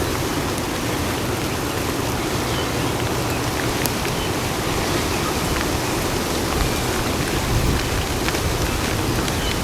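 Steady rain falling, with a few sharp drop ticks now and then.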